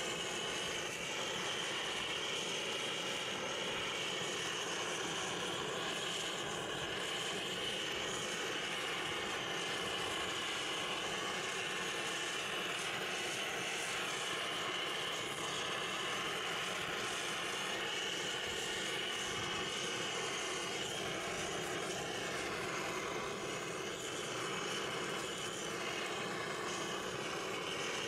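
Handheld gas torch on a butane canister burning with a steady hiss as it singes a duck's carcass.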